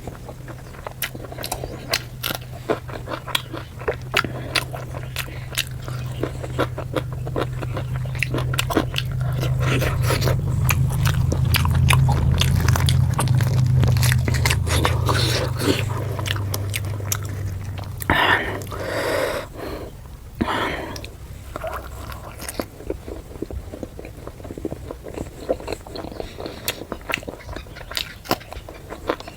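Close-miked chewing and biting of puri with chicken curry: a steady run of wet mouth clicks and smacks. A low hum swells and fades in the middle.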